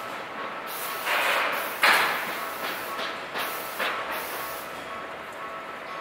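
Several short, sharp hisses of compressed air from a Setagaya Line tram's pneumatic system, each cutting in suddenly and dying away within half a second, the loudest a little under two seconds in, over steady background near the tram crossing.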